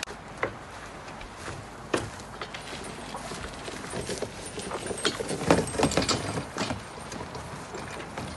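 Gorilla Carts poly-tub dump cart on pneumatic tyres being pulled over rough, dry ground, its steel frame, tub and handle clicking and rattling as it rolls. The knocks come thickest and loudest about five to six and a half seconds in.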